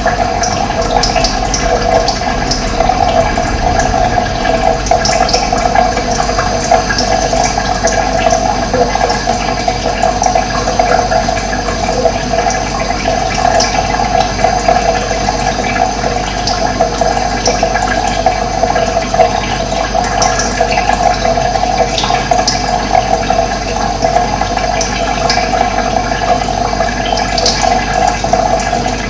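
Steady rush of running water, with short bird chirps scattered through it.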